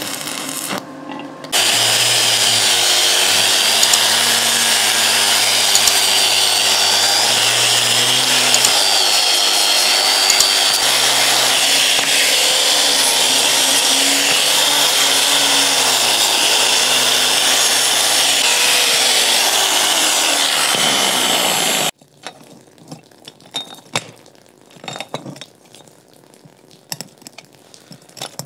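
Angle grinder grinding steel square tube, running steadily for about twenty seconds with its pitch wavering up and down, then stopping abruptly. It is followed by faint clinks of the metal parts being handled.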